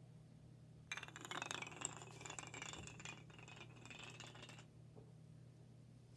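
Kapla pine planks toppling one after another in a domino run: a fast, continuous wooden clatter of many small clicks that starts about a second in, runs for nearly four seconds and then stops.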